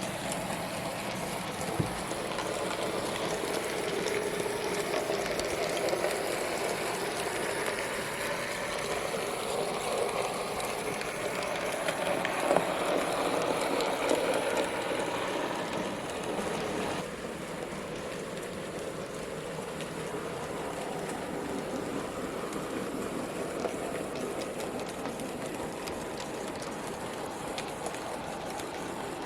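N gauge model train running on the layout: a steady rattle of small wheels on track with motor hum, growing louder toward the middle as the train comes close, then dropping suddenly about two-thirds of the way through.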